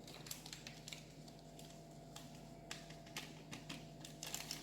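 Baking powder being emptied from paper sachets into a bowl of flour: faint, scattered light taps and clicks that grow busier near the end, over a faint steady hum.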